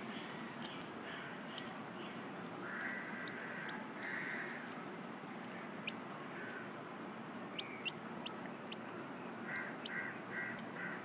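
Domestic birds calling over a steady background hiss: short calls about three and four seconds in, then a quick run of about six short calls near the end.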